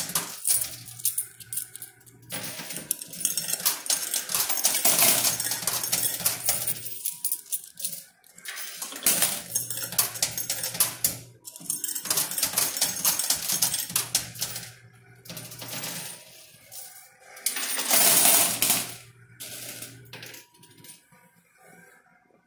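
Quarters clinking and clattering in a coin pusher machine as the pusher shelf shoves them across the metal shelves and over the edge. The clatter comes in bursts every few seconds and dies down near the end.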